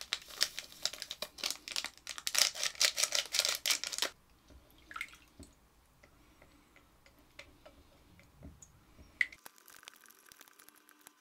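Spatula stirring yeast into water in a glass bowl: rapid sloshing and scraping, loudest for the first four seconds, then softer with scattered light taps against the glass.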